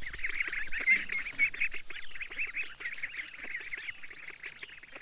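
A brood of goslings and ducklings peeping, many quick high chirps overlapping one another, growing fainter in the second half.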